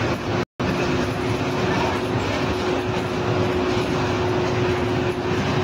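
Steady running noise of a moving passenger vehicle heard from inside the cabin, with a steady droning hum throughout. The sound cuts out completely for a moment about half a second in.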